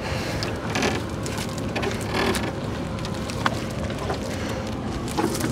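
Steady splashing, rushing water noise around a small fishing boat, with a low rumble and a few brief knocks.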